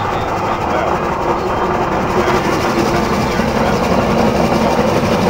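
Fowler steam roller running past close by, a steady dense mechanical noise that grows louder over the second half.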